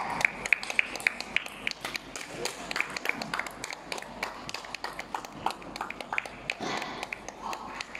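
Table tennis balls clicking sharply and irregularly, several times a second, off tables and bats in rallies across a hall, with faint voices.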